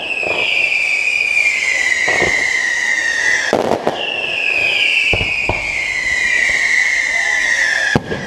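Fireworks display: several sharp bangs of shells bursting. A loud high tone slides down in pitch twice, each slide about three and a half seconds long.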